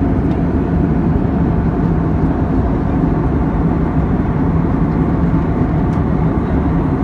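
Steady cabin noise of a jet airliner in flight: a low, even rumble of engines and rushing air, with a faint steady hum.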